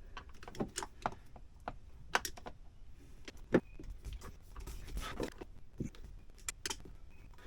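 Scattered plastic clicks and knocks of a flathead screwdriver probing the release hole on the back of a Ford Transit steering wheel, feeling for the spring clip that frees the airbag; the sharpest click comes about three and a half seconds in.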